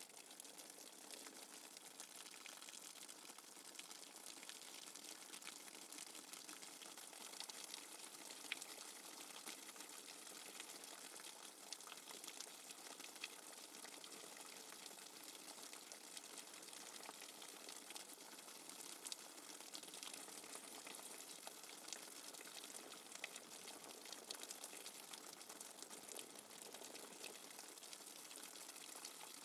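Steady rain falling, a soft even hiss with many small drop ticks, with no thunder.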